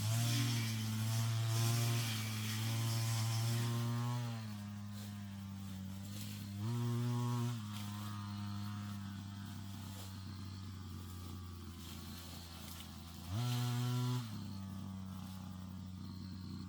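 Brush cutter engine running at high revs, dropping to idle after about four seconds, then revved briefly twice, each rise lasting under a second.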